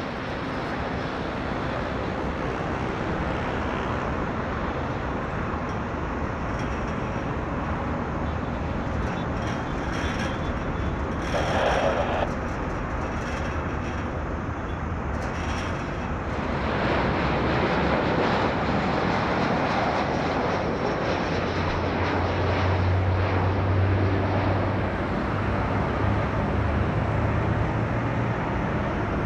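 Jet airliner taking off: a steady rush of jet engine noise that grows louder a little past halfway, with a low steady drone underneath in the last several seconds.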